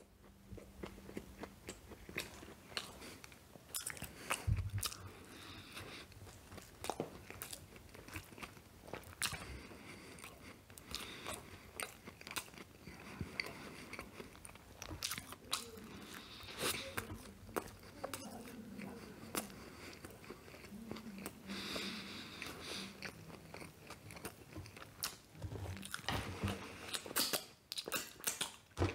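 Close-up chewing and biting of a McChicken sandwich, with frequent irregular crunches and wet mouth clicks.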